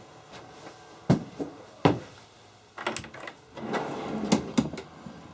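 Sharp wooden knocks and clatter from an antique wooden tool chest and its parts being handled, a few separate knocks followed by a busier cluster with some scraping about four seconds in.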